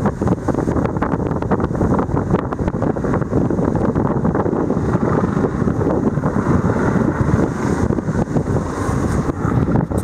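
Wind buffeting the microphone: a loud, steady rumble with no let-up.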